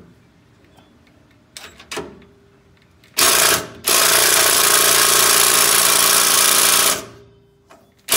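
Black & Decker cordless impact driver hammering on the rear shock's 18 mm bolt: a short burst about three seconds in, then a steady run of about three seconds. It fails to break the bolt loose.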